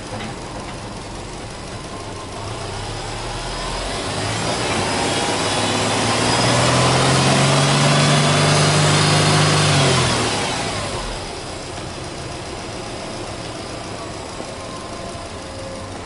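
Subaru Legacy B4 tuned by STI's boxer engine idling, then revved up slowly in neutral, held high for about three seconds and let fall back to idle.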